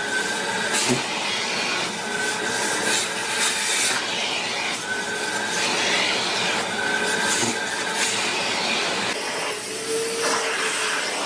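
Vacuum cleaner running while its hose nozzle is drawn over a cat's fur: a steady rushing noise with a short whistle several times. About nine seconds in, another vacuum nozzle takes over with a lower, steadier tone.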